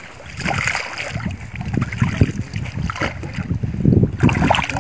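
Wind rumbling on the microphone, with water splashing in the shallows as small fish are slid back into the lake by hand.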